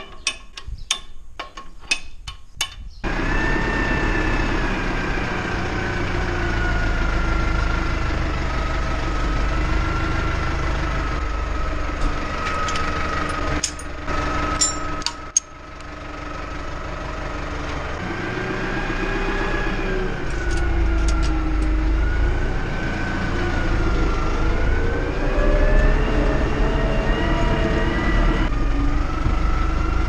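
A few sharp metal clicks from a ratchet wrench on a plough's hitch, then a tractor's diesel engine running, its pitch rising and falling as the revs change.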